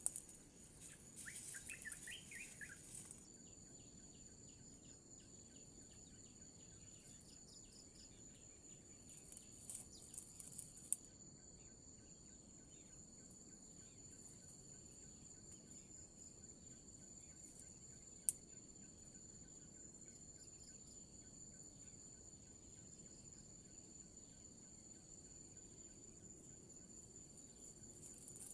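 Faint, steady high-pitched trilling of forest insects such as crickets or cicadas. A bird gives a short run of chirps about two seconds in, and a couple of sharp clicks sound around a third and two-thirds of the way through.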